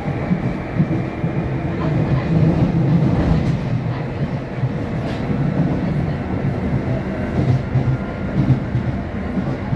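Jubilee line 1996 stock Underground train running, a steady rumble with scattered wheel clicks.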